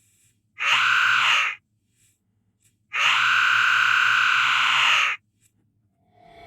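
A person's voice making loud, rasping, drawn-out 'eaugh' throat-hacking noises, twice: a one-second one about half a second in, then a longer one of about two seconds.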